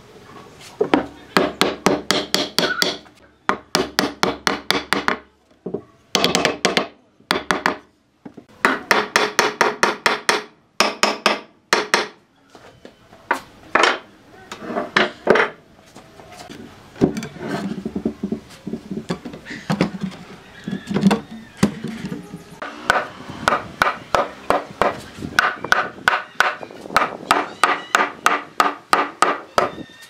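Hammer striking wood in runs of quick blows, about four or five a second, each with a short metallic ring, with brief pauses between runs. The hammering drives wooden legs into the joints of a redwood slab.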